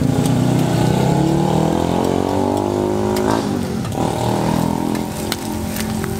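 Motorcycle engine accelerating past, its pitch climbing, dropping sharply at a gear change a little over three seconds in, then climbing again.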